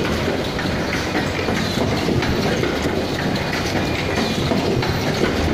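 Automatic cup-mask production machine running: a steady mechanical clatter with light clacks repeating about every half second as the mask fixtures index from station to station.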